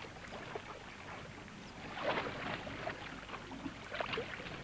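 Water sloshing and splashing around a herd of elephants swimming across a river, with louder splashes about two seconds in and again near the end.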